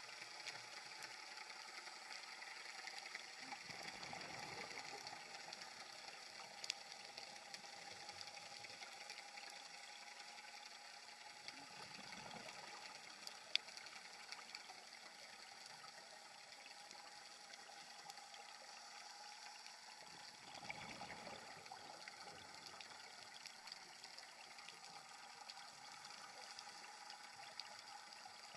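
Faint underwater scuba-dive sound: a steady hiss, with a diver's exhaled regulator bubbles gurgling past about every eight seconds. Two sharp clicks come about a third and halfway through.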